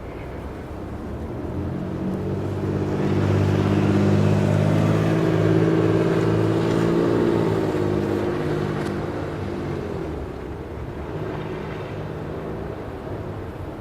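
A motor vehicle's engine passing by on a snowy street. It swells for a few seconds, holds loudest for several seconds, then fades away, and it plays in reverse.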